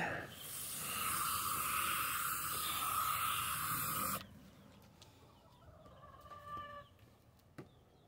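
Water spraying from a pistol-grip garden hose nozzle onto a saucer of wet sand: a steady hiss for about four seconds that cuts off suddenly. Faint chicken clucks follow near the end.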